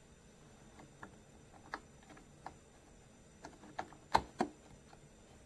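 Scattered light clicks and taps of small parts being handled, with two sharper knocks a little past four seconds in.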